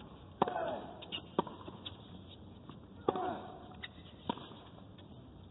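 Tennis rally on a hard court: the ball is struck back and forth with sharp pops every one to two seconds, four shots in all. A short falling grunt from a player follows two of the shots.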